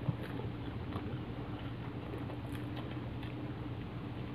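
Quiet eating at a table: faint chewing and small clicks of food being handled, with a sharper click just after the start, over a steady low hum.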